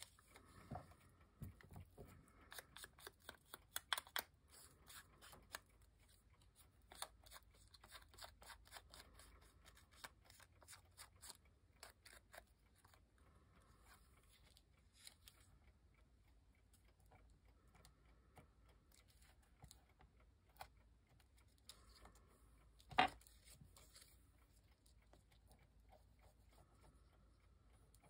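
Faint snips and paper rustling as paper is cut and handled, a quick run of small clicks over the first dozen seconds and then sparser ones, with a single sharper click about 23 seconds in.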